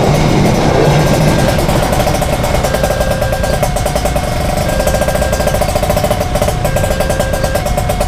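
Mechanical level-crossing bell ringing with rapid, even strokes while the barrier is down, over the rumble of a train clearing the crossing that fades in the first second or two. A higher steady tone comes and goes about once a second alongside the bell.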